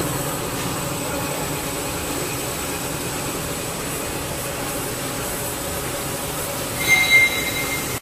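Cable-production machinery running in a factory hall, a steady mechanical noise. About seven seconds in there is a brief, louder high squeal.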